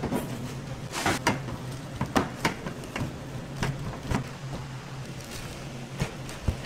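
Kitchen work at a breading station: irregular knocks and taps of breaded cutlets and hands on metal trays, over a steady low hum.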